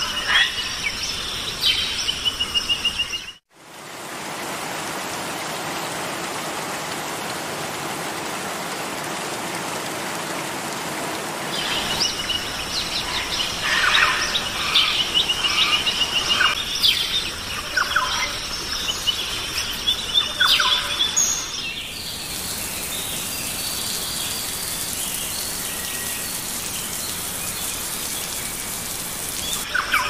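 Forest ambience: birds chirping and trilling over a steady hiss. The background changes abruptly about three seconds in and again about two-thirds of the way through, and the bird calls are thickest in the middle stretch.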